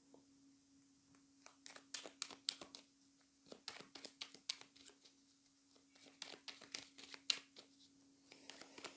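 A deck of playing cards being shuffled and handled: irregular quick snaps and rustles of the cards, starting about a second and a half in and dying away near the end. A faint steady low hum runs underneath.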